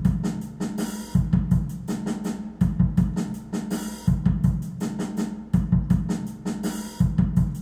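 Simplified Afrobeat drum-kit pattern played back by Sibelius notation software: three kick drums and a snare, then two more snares, over hi-hat ticks. The figure repeats about every one and a half seconds at a tempo of 82 beats a minute.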